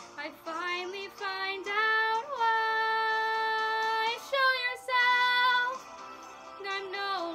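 A teenage girl's solo singing voice, holding long high notes and sliding between them, with one note held for nearly two seconds midway.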